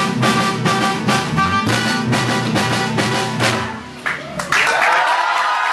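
A live band plays an up-tempo song with a steady beat of strummed strokes and drum hits, which stops about four seconds in. Half a second later the crowd breaks into cheering, whistles and applause.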